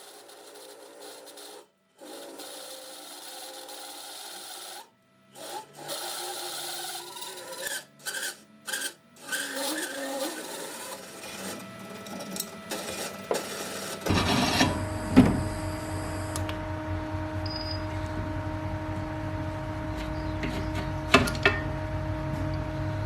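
Short bursts of scraping, cut apart by sudden silences. About halfway through, the drill press motor starts and runs with a steady hum, with a couple of sharp knocks.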